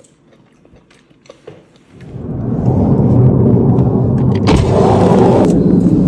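A jet aircraft flying over: a loud low rumble that swells in about two seconds in and keeps going, with a short burst of hiss about two seconds later. Before it, only a few faint clicks.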